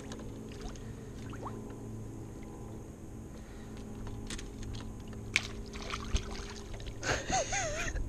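Steady low motor hum from the fishing boat, with splashing as a hand reaches into the water among submerged branches to free a hooked bass, and sharp knocks and clicks a few seconds in. A voice wavers up and down near the end.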